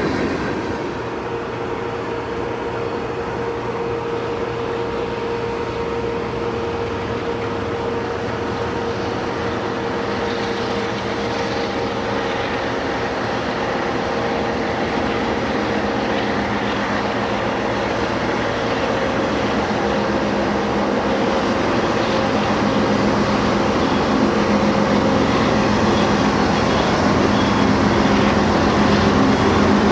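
A train running past, a steady rumble of wheels and engines that grows a little louder toward the end.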